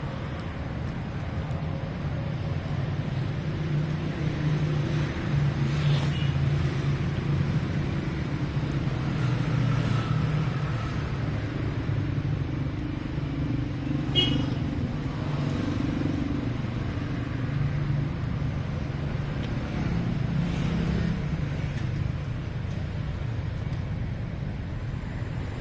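Street traffic: car and motorcycle engines hum steadily as vehicles pass, swelling and fading. There are two brief sharp high sounds, about six and fourteen seconds in.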